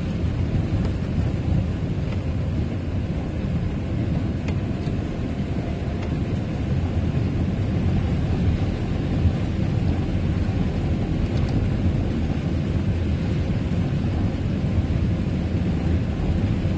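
Steady low engine and road rumble of a camper van driving on a wet road, heard from inside the cab.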